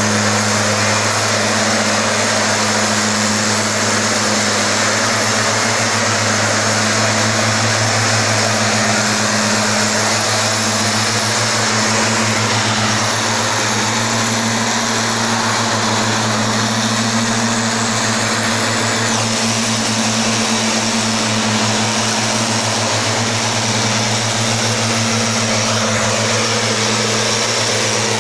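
Stihl backpack mist blower's two-stroke engine running steadily at a constant high speed, with the rush of air through its blower tube.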